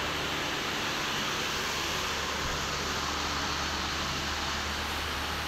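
Steady hiss with a low hum underneath, unchanging throughout, with no distinct events.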